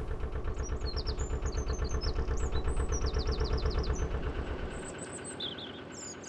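Narrowboat's engine running under way with a steady, even low beat; about five seconds in the beat becomes much fainter.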